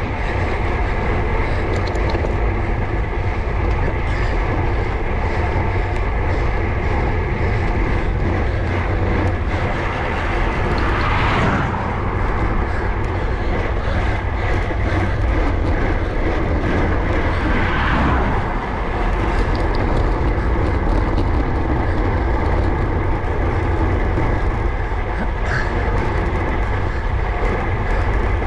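Wind buffeting an action camera's microphone on a moving road bike, a heavy steady rumble over the hum of the tyres on tarmac, with two brief swells of rushing noise about eleven and eighteen seconds in.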